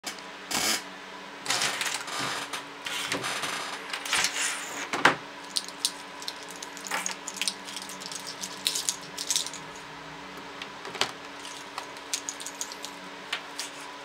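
Handling noise from a multi-tip universal USB charger cable: its small plastic and metal plug tips click and rattle against each other and the wooden desk. A run of louder scrapes and clatters comes in the first five seconds, with lighter, scattered clicks after.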